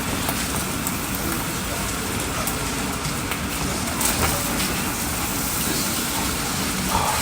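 Pork fried rice sizzling in a hot pan, a steady crackling hiss with a few faint clicks.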